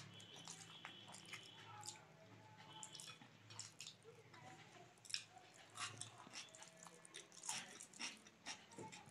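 Close-up eating with the hand: soft, irregular chewing and lip-smacking clicks as rice and dal are mixed by the fingers on a plate and eaten.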